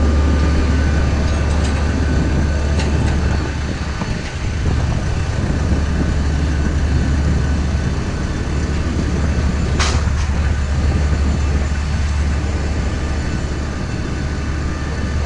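Steady low drone of a vehicle heard from inside its cabin, with one short sharp hiss about ten seconds in.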